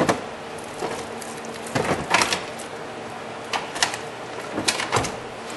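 A new car battery being set down into a Honda Civic's battery tray and shifted into place, with several hard knocks and clunks in clusters.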